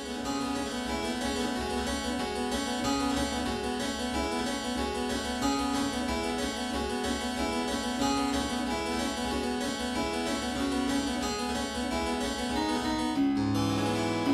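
Harpsichord played: a continuous run of quick plucked notes, with lower bass notes coming in near the end.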